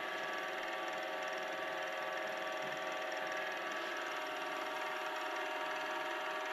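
Wood lathe running steadily at speed, a hum with several held tones, while the spinning pen blank is smoothed with micro mesh pads.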